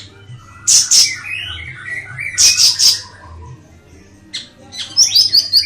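A siri-siri songbird singing: loud, harsh, rasping high calls in groups, about a second in, three together around the middle, and more near the end, with quick runs of thin whistled notes between them.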